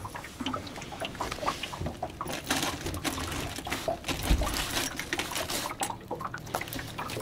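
A freshly caught trout being handled and unhooked in a wet landing net: irregular wet slapping, squelching and rustling of net mesh, with one dull knock about four seconds in.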